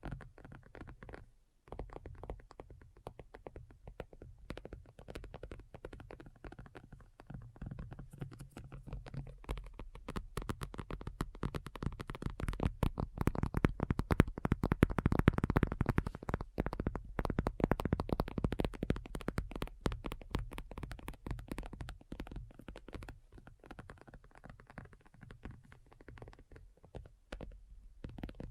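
Fingernails tapping rapidly and continuously, a dense stream of small clicks that grows louder toward the middle and then eases off, over a low rumble.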